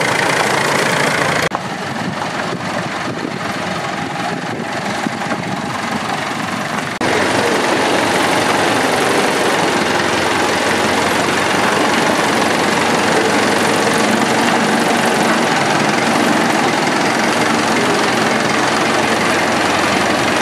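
Massey Ferguson 65 tractor engine running steadily, a little quieter for a few seconds near the start.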